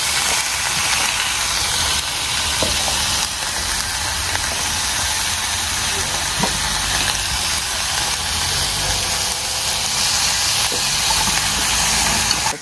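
Steady, even sizzling hiss with a few faint ticks.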